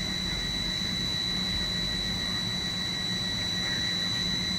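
Wheat snack pellet production line running: the dough-sheet roller press and its drives give a steady machine hum with a constant high-pitched whine over it.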